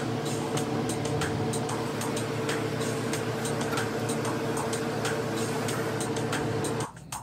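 Steady machine hum with a light regular ticking, two or three ticks a second; it cuts off abruptly near the end.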